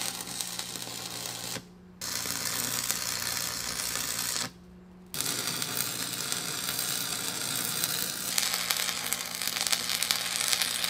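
Arc welding with a stick electrode: the steady crackle and sizzle of the arc, with a low hum under it. It stops twice briefly, about one and a half and four and a half seconds in, then carries on.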